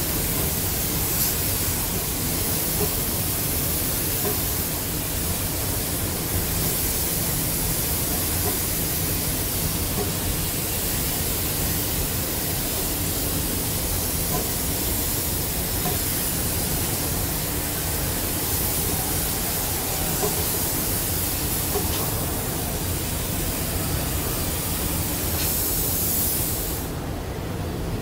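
A paint robot's spray gun hissing steadily as it coats a tractor chassis, over a steady low hum. The spray hiss cuts off about a second before the end.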